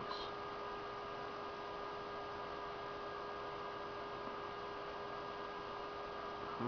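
Retro Pentium MMX PC running at idle: a steady hum and hiss of cooling fans and spinning drives, with a constant mid-pitched tone over it.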